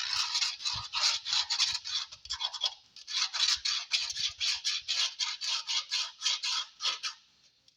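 A pen scratching back and forth on the speaker box, marking out the line to be cut in quick strokes of about three or four a second. The strokes stop about seven seconds in.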